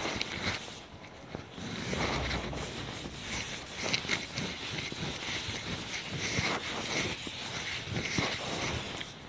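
Chalkboard duster wiping chalk off a blackboard in repeated rubbing strokes.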